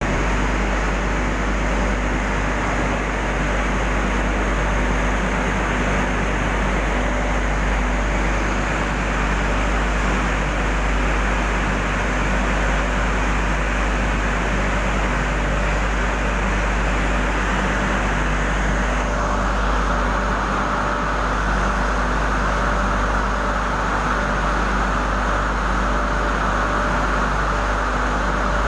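Steady loud roar of an industrial furnace, with a constant low hum under it. About two-thirds of the way in the noise changes, losing its top and becoming a narrower, brighter rushing sound.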